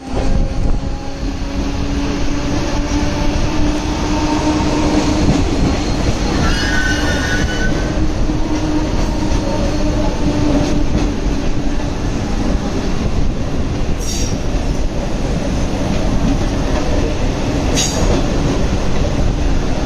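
Vande Bharat Express electric trainset rolling past: a steady rumble of wheels on rails with a low hum. A brief high squeal comes about seven seconds in, and two sharp clicks come later on.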